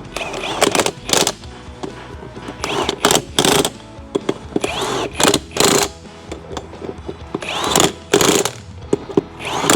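Background music with repeated short, loud bursts of a power tool, such as an impact gun, sounding over it at uneven intervals.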